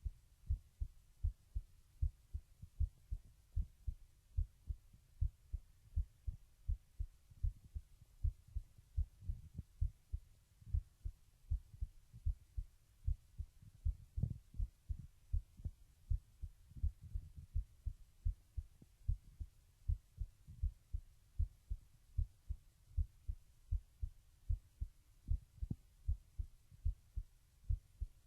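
A teenage boy's heart beating at rest while he lies down, picked up by a microphone held close to him. Low, dull thumps come in a steady, even rhythm.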